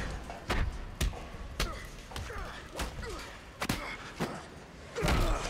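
Heavy punches landing in a movie fistfight: a series of separate hard blows, roughly one every half second to a second, the last and loudest near the end.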